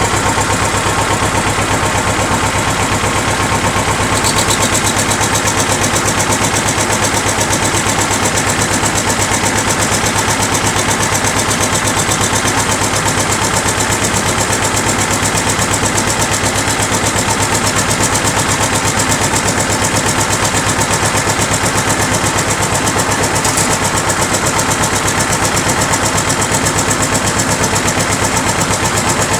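T-25 tractor's two-cylinder air-cooled diesel running steadily, its exhaust beats fast and even. A homemade turbo whistle on the engine adds a faint steady whistle tone, and the high hiss grows a little about four seconds in.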